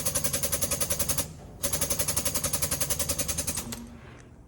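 Air-over-hydraulic jack pumping with a fast, even rattle, in two runs with a short pause a little over a second in, lifting a heavy combine drive wheel.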